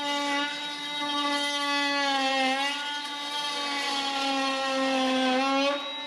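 Parkside Performance PAMFWP 20-Li B2 brushless cordless oscillating multitool running with its blade cutting into a wooden board: a steady buzzing tone that sags in pitch twice and rises again just before the end.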